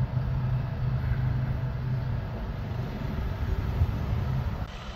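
Diesel engine of a semi-truck tractor running as it pulls a loaded lowboy trailer into place, a steady low hum that eases off a little past halfway.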